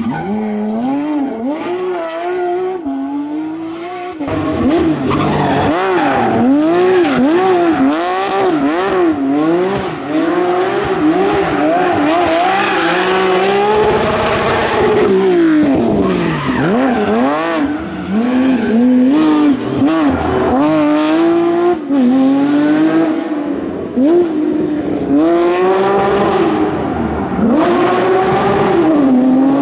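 Porsche rally car driven flat out, its engine revving high through repeated upshifts and downshifts, the pitch climbing and dropping every second or two.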